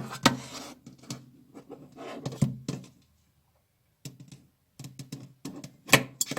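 Clicks and knocks from a metal hidden clasp frame being handled, with a quiet pause in the middle and a sharper click about six seconds in.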